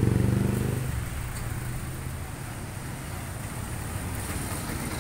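Street traffic: a vehicle engine passing close, loud at first and fading away about a second in, then a steady low rumble of traffic.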